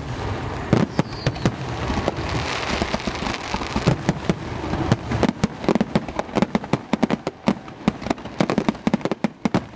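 Fireworks display: aerial shells bursting in many sharp bangs, irregularly spaced and coming thicker from about halfway through.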